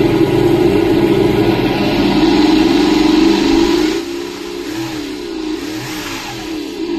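Engine sound module on an Axial Ryft RC rock crawler playing a simulated engine through its speaker: a loud steady engine note, then about four seconds in it drops in level and the pitch rises and falls as the throttle is worked.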